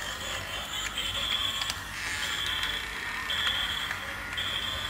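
Battery-powered toy dump truck's electronic sound effect: a high beep, about half a second long, repeating roughly once a second over the steady noise of its running mechanism.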